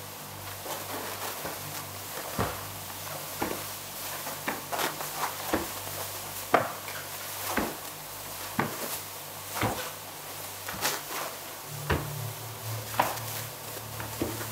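Slow, even ticking like a clock, about one tick a second, over a low steady hum. A deeper low tone swells in near the end.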